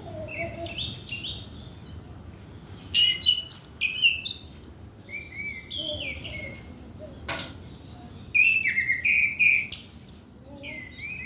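Chestnut-capped thrush (anis kembang) singing: a varied song of quick sliding whistles and chirps, with two loud, dense bursts of phrases about three seconds in and again near eight seconds. A single sharp click about seven seconds in.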